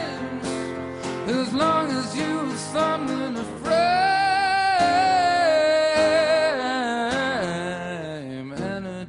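A man singing a drawn-out vocal line over guitar accompaniment in a live song performance. About a third of the way in he holds one long note, which slides down near the end.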